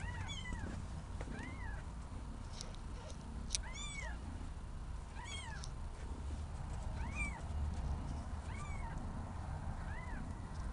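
Very young kittens mewing: about seven short, high, thin calls, each rising and falling, about every second and a half.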